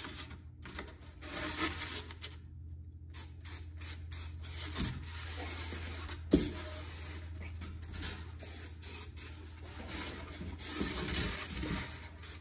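Foam block and cardboard being handled and slid into place, with rubbing and scraping rustles and one sharp knock about six seconds in, over a steady low hum.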